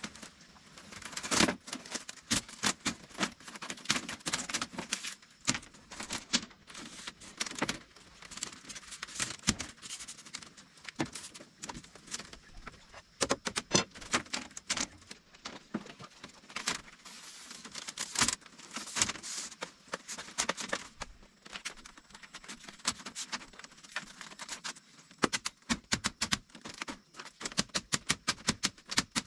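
Sharp, irregular knocks and clicks, like hand work with tools or wood, turning into a fast, even run of taps near the end.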